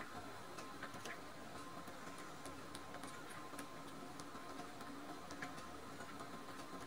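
Faint, irregular small clicks and smacks of a very young kitten suckling milk from a bottle nipple.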